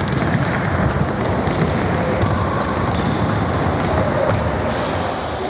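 Many children running across a sports-hall floor: a dense, continuous clatter of footfalls and thuds, echoing in the large hall.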